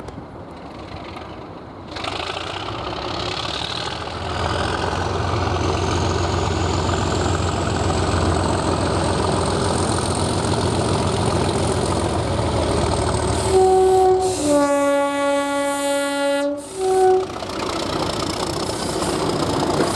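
Diesel train passing close with its engine running, then sounding a two-tone air horn: a short high note, a long low note of about two seconds, and a short high note again.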